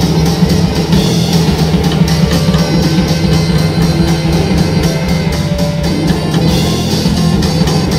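Live band playing at a loud, steady level: drum kit, double bass, saxophone, guitar and keyboards, with a constant low drone under close-set drum strokes.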